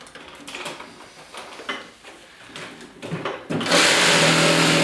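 A few light handling knocks and clicks, then about three and a half seconds in a reciprocating saw starts and runs steadily at full speed, cutting dry spruce with a regular, non-pruning wood blade.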